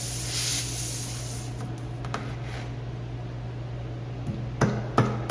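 Air hissing from a tire's nail hole, fading out after about a second and a half. Near the end, a few sharp knocks about half a second apart as a tire-plug tool is forced into the tread.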